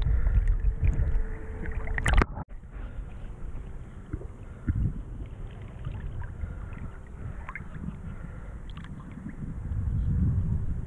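River water lapping and splashing right at the microphone, with wind on the microphone rumbling underneath and small scattered ticks of droplets. The sound breaks off sharply about two seconds in and picks up again more quietly.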